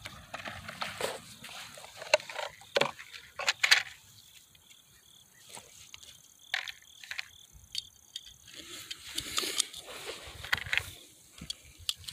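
Sharp clicks and rattles of 9mm cartridges and their plastic tray being handled as a box of ammunition is opened, coming in clusters with short pauses. Faint insects chirp steadily behind.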